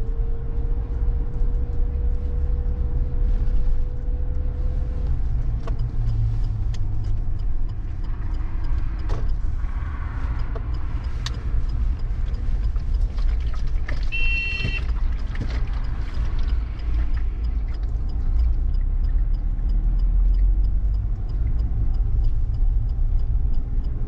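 Car driving along the road: a steady low rumble of engine and tyres. A brief high beeping comes about two-thirds of the way through.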